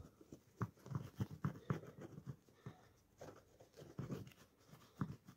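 Tip of a glue bottle scratching and rubbing against the lining inside a sneaker's heel as glue is spread, with rustling of the fabric and padding being held back, in short irregular strokes.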